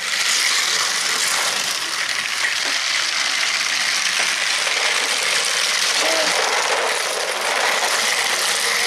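Several battery-powered toy cars running around a flexible plastic track, their small electric motors whirring and their wheels clattering over the linked track pieces in a steady, continuous noise.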